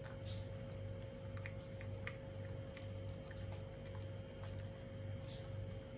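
Indian Spitz dog eating a soft sweet laddoo mash off a steel plate: a few faint, scattered clicks and licks over a steady low hum.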